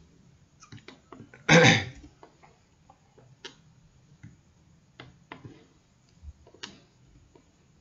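A short, loud burst of breathy throat noise close to the microphone, like a cough or a throat clearing, about one and a half seconds in. After it come a few sparse computer mouse clicks.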